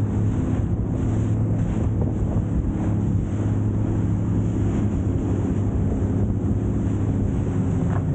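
Jet ski engine running at a steady speed, a constant drone that holds its pitch, with wind buffeting the microphone.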